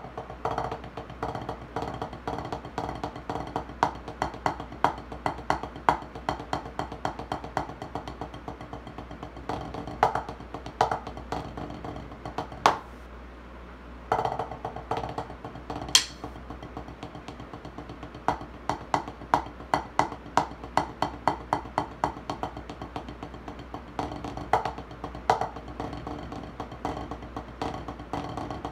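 Pair of drumsticks playing fast rudiment patterns on a wooden practice pad: dense, rapid strokes with regular louder accents. The strokes stop for about a second just under halfway through, then resume, with one sharp crack soon after the restart.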